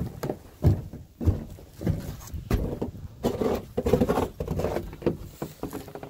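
Footsteps crunching in snow, climbing snow-covered wooden steps and crossing a snowy deck in a series of uneven steps.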